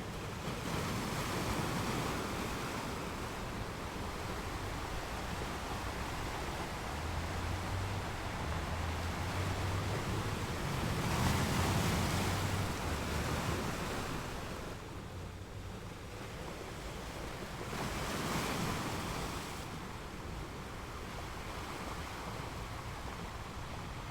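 Ocean surf: waves swelling and washing back in three slow surges, the loudest about halfway through.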